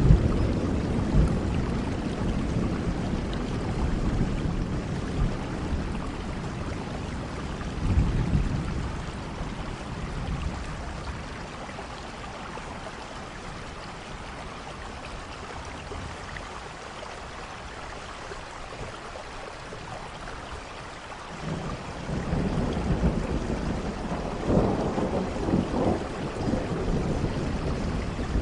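Steady rain with rolling thunder: a low rumble fading over the first few seconds, a short one about eight seconds in, then the rain alone and quieter, and a longer rumble building again about twenty-one seconds in.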